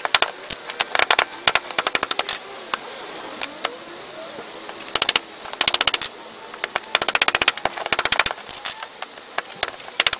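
Bursts of rapid crackling and clicking as a hand scrapes and pushes a sealed lead-acid battery's plate block through crumbled, gritty plate paste and case fragments on concrete. There are several separate bursts, the longest about seven seconds in.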